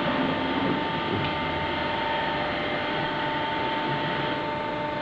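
Tea steaming machine running: a steady hiss of steam with a constant whine over it, as loose pu-erh tea in a metal cylinder is steamed soft for pressing into a cake.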